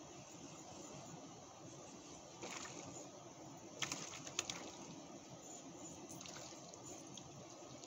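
Faint steady outdoor background hiss with a few sharp clicks, the loudest cluster about four seconds in, from a spinning reel being worked during a retrieve.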